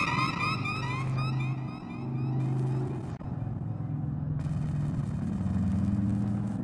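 Rescue boat's engines running, heard from inside the wheelhouse, with a steady low drone whose pitch shifts up and down in steps as the boat works through rough seas. A series of falling whistle-like tones fades out about a second in.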